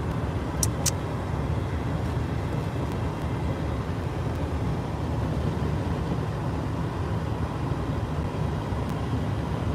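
Steady low rumbling background noise, with two brief faint clicks just under a second in.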